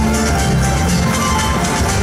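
Paso doble dance music playing with a steady beat.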